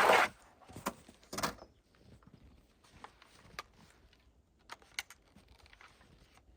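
Chainsaw being handled before a cold start, engine not running: a brief rasping burst at the start and another about a second and a half in, with a sharp click between them and scattered faint clicks and knocks after.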